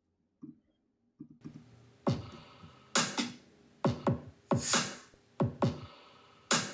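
Electronic drum-machine loop from Soundtrap's loop library playing, starting about a second in. It has deep kick drums that drop in pitch and a bright crashing hit about every 1.7 seconds.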